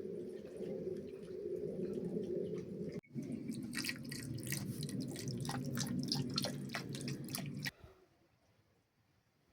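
A pot of thick walnut stew bubbling, with a low steady rush under many sharp plopping pops. The sound breaks off abruptly about three seconds in, resumes with denser pops, and fades to near quiet near the end.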